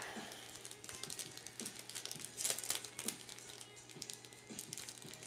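Soft crinkling and scattered light ticks of a pack of plastic trading-card sleeves being handled and opened, over faint background music.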